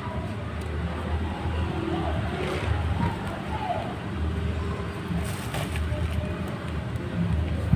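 Uneven low background rumble, with faint voices in the distance.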